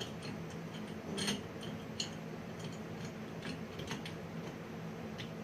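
A few light metallic clicks and clinks as BMX bike parts and tools are handled and fitted, over a steady low hum.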